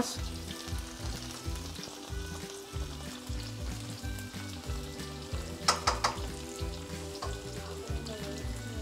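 Meatballs frying in coconut oil in a frying pan, a steady sizzle, with two sharp clicks a little past halfway.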